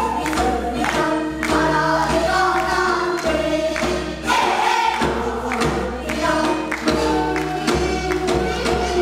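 A group of children singing a Korean folk song (minyo) together, with regular drum strokes marking the beat.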